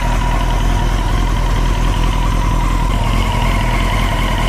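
Honda CBR954RR's inline-four engine idling steadily, with a slight knock-like noise from the back left side of the engine. The owner can't identify the noise; he places it near the throttle bodies and guesses it could be a bent valve.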